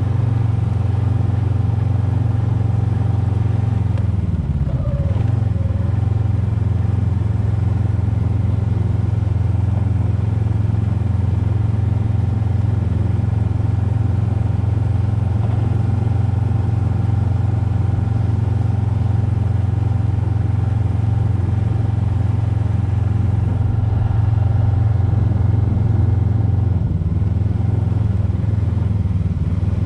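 Snowmobile engine running steadily while under way, a constant drone whose pitch dips briefly and recovers about four to five seconds in.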